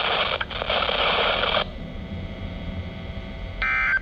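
Weather-radio receiver hiss that cuts off abruptly about a second and a half in, leaving quieter dead air. Near the end comes a short burst of shrill digital data tones: an Emergency Alert System SAME end-of-message burst closing the weekly test.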